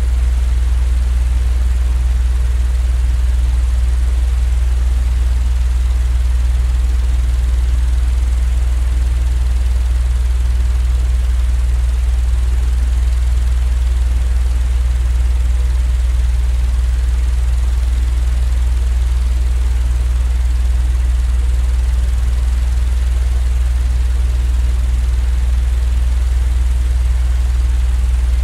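Steady, unchanging low machine drone with a soft hiss above it, played as continuous white noise for sleep.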